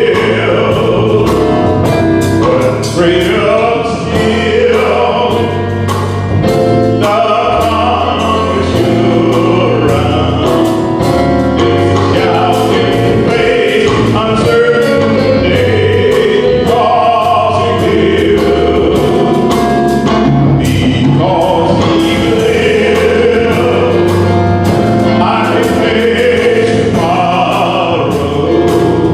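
Man singing a gospel song into a microphone over instrumental accompaniment, with a bass line and a steady beat.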